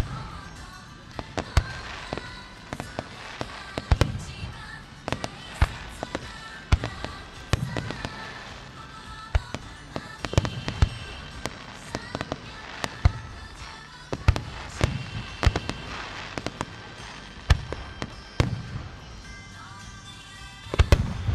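Aerial firework shells bursting high overhead. Sharp bangs come one after another at irregular spacing, roughly one every second, with a quick cluster of bangs near the end.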